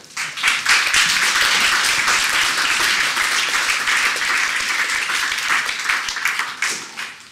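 Audience applauding, a dense patter of many hands clapping that breaks out suddenly, holds steady and dies away near the end.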